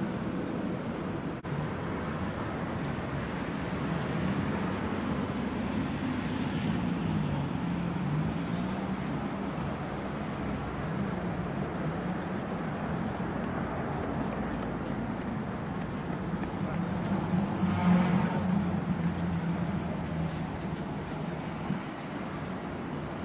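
Engines of slowly driving cars, a steady low drone whose pitch wavers up and down as the revs change, loudest about 18 seconds in.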